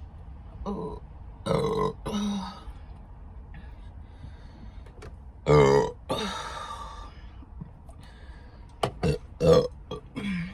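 A woman burping several times, the loudest and longest burp about five and a half seconds in, with a few short clicks near the end.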